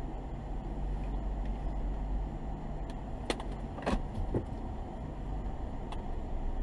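Car cabin noise recorded by a dashcam: a steady low engine and road rumble as the car moves slowly, with a few short sharp clicks around the middle and one more near the end.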